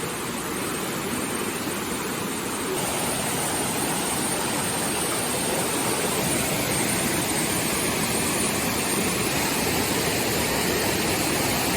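Steady rush of flowing water, getting a little louder about three seconds in.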